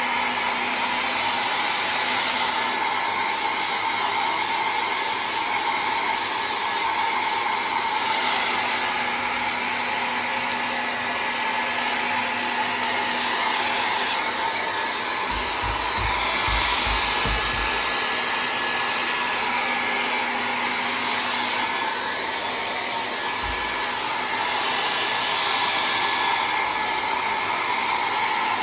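Hair dryer blowing steadily, drying the wet ink and rice paper of a painting. A few low bumps come about halfway through.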